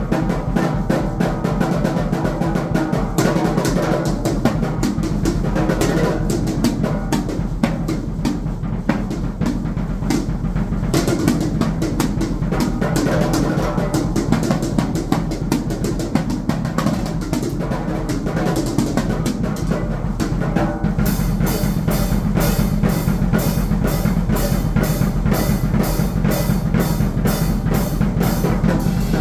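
Drum kit played fast and busily, with dense drum strokes throughout. In the last third a steady high stroke about twice a second joins in over the drums.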